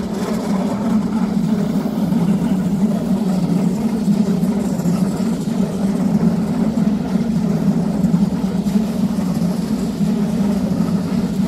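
Red DB S-Bahn electric multiple-unit train running past close by: a steady, loud drone from its motors and running gear on the track.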